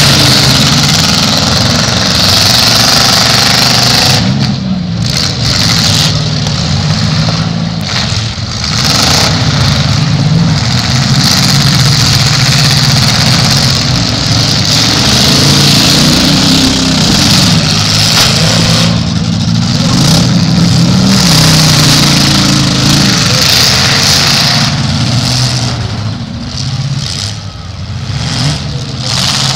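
Engines of several full-size demolition derby cars running and revving, loud and continuous, their pitch rising and falling as the cars move around the arena.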